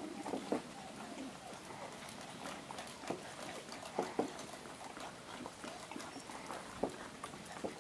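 Puppies' paws knocking and scrabbling on a wooden pallet as they play, in a string of irregular knocks.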